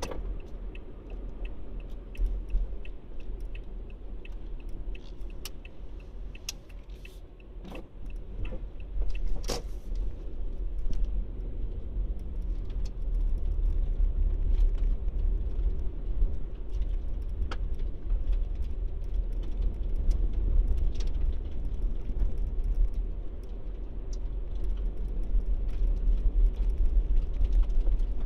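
A car driving slowly, heard from inside the cabin: a steady low rumble of engine and tyres. An even ticking, like a turn signal, runs for the first several seconds, and a few knocks and rattles come around eight to ten seconds in.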